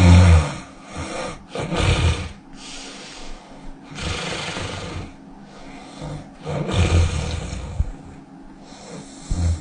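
A sleeping person snoring loudly, about five snores at roughly two-second intervals.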